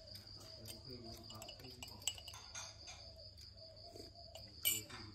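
A steady, high-pitched insect trill, with soft scattered clicks and one sharper click near the end as a baby macaque bites and mouths a metal spoon.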